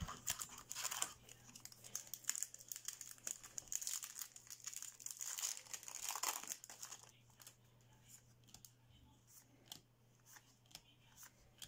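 Foil wrapper of a Yu-Gi-Oh booster pack crinkling as it is torn open, with dense crackling for about the first seven seconds. Then come a few light clicks as the trading cards inside are handled.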